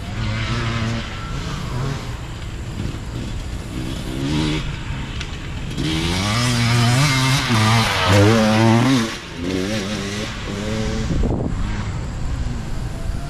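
Hard enduro dirt bike engines revving in short throttle bursts, the pitch climbing and falling. The longest, loudest stretch of revving comes about halfway through and cuts off sharply.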